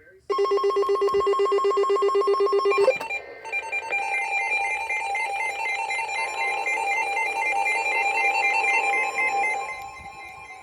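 An emergency alert signal sounding. First comes a loud, rapidly pulsing buzz-like tone for about two and a half seconds. After a short break it turns into a two-pitch alert tone that switches back and forth in a steady rhythm for about six seconds, then drops away near the end.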